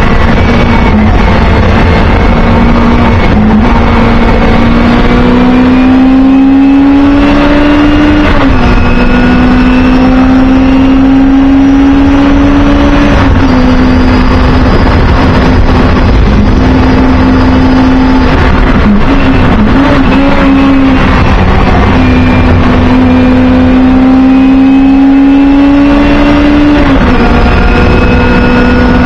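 Singer Chamois race car's rear-mounted four-cylinder engine heard from inside the cabin under hard acceleration. Its note climbs steadily through each gear and drops sharply at upshifts about 8, 13 and 27 seconds in, with a brief wavering around 19 seconds.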